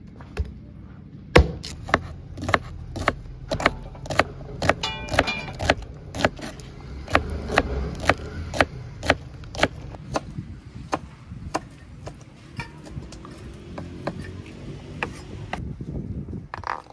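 Blade-on-wood chopping: a hatchet splitting kindling on a log and a kitchen knife chopping spring onions on a wooden cutting board, a steady run of sharp strikes about two a second.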